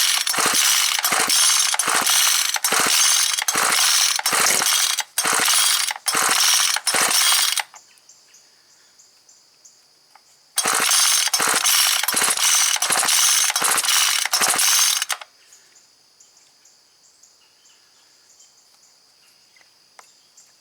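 Ryobi S430 four-stroke trimmer being pull-started on choke: rapid, regular pulls on the recoil starter crank the engine without it running. Two runs of pulls, the first lasting about seven seconds and the second about five, with a short pause between.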